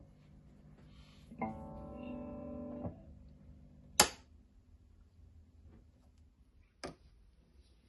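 Guitar played through a Cordovox amplifier: a soft chord rings for about a second and a half, followed by two sharp clicks a few seconds apart.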